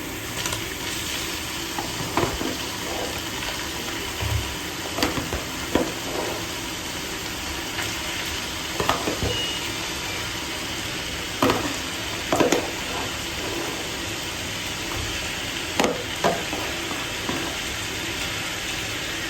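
Cubes of boneless chicken sizzling in hot oil and ginger garlic paste in a frying pan, a steady hiss, with a utensil stirring and scraping against the pan every second or few.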